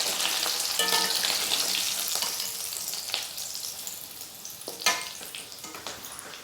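Wheat-flour snacks deep-frying in hot oil, a steady sizzle that gradually dies away, with a sharp metal clink of a utensil about five seconds in.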